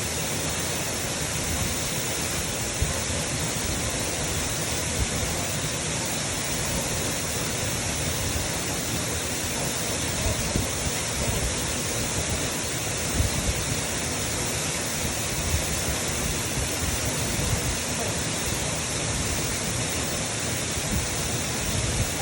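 Waterfall pouring down: a steady, unbroken rush of falling water.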